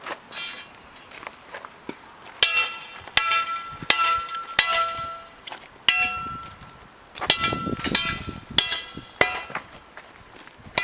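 Repeated hand hammer blows striking metal while a drinking fountain is broken apart by hand, each strike a sharp clang that rings on briefly. About nine blows, irregularly spaced, less than a second to over a second apart.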